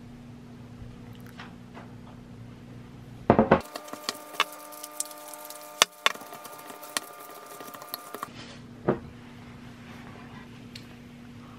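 Wooden spoon knocking and scraping against a ceramic bowl as rice and fried eggs are mixed and scooped, in a run of irregular clicks, with a steady low hum underneath.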